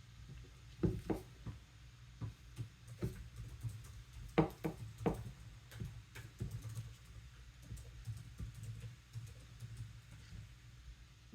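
Small parts of a Scubapro Air 2 being handled on a workbench during its rebuild: scattered light knocks and clicks, a few sharper ones about a second in and around four to five seconds in, over a low steady hum.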